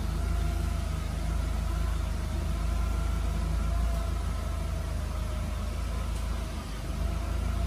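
Forklift engine running steadily while pulling a car on a tow strap: a low drone with a faint steady whine above it.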